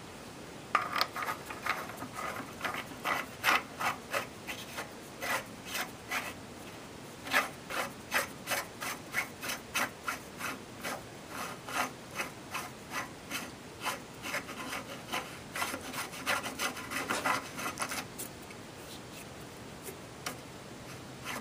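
Steel muzzle brake being screwed by hand onto an AR-15 barrel's threads, metal scraping against metal in quick, short rasping strokes, a test that it threads on freely without burrs or cross-threading. The strokes pause briefly near the end.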